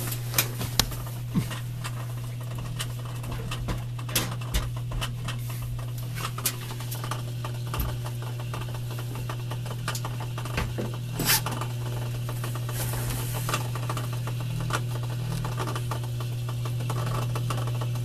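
Kenmore front-load washer's drain pump humming steadily, with irregular clicks and rattles through the hum. It is the sound of a bad drain pump, or of something stuck in it, on a washer that will not pump out its water.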